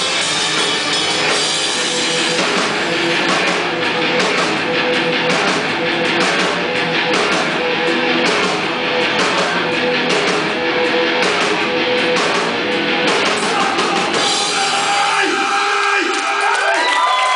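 Rock band playing live, with distorted electric guitars and a drum kit. About fifteen seconds in, the drums and bass drop out as the song finishes, leaving sliding high tones.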